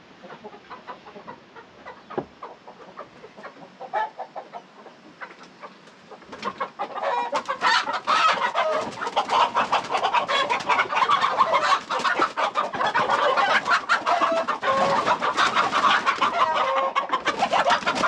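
Chickens clucking quietly, then about seven seconds in loud, continuous squawking breaks out amid scuffling: the birds are alarmed as a rooster is caught by hand.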